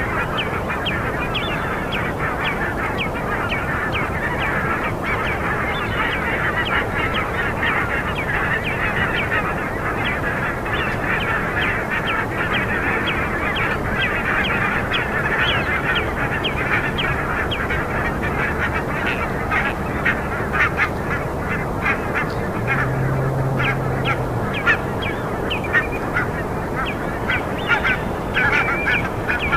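A dense chorus of bird calls at night: many short calls overlapping without pause. A brief low, steady hum sounds under it about three-quarters of the way through.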